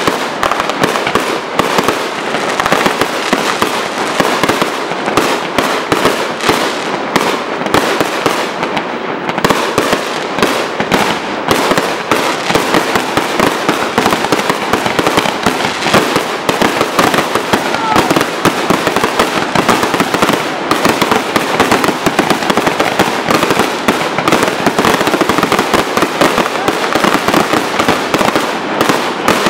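Fireworks display in a rapid, unbroken barrage: many bursts and crackles every second, with no pauses.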